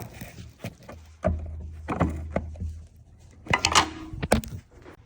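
Scattered clicks and knocks of hands working the gear shifter arm and its retaining clip loose under a BMW Z4, with a cluster of sharper metallic knocks past the middle. A low hum runs for about a second and a half near the start.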